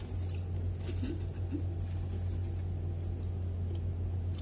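Soft bread torn apart by hand and chewing, as small scattered clicks and rustles over a steady low hum.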